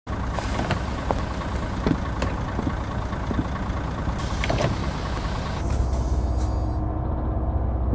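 City bus engine idling with a steady low rumble. About four seconds in a loud hiss joins it for a second and a half. Near the end the high hiss falls away, leaving the low rumble.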